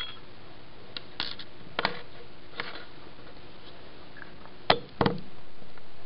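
Several sharp knocks and clicks at uneven spacing, the two loudest close together near the end.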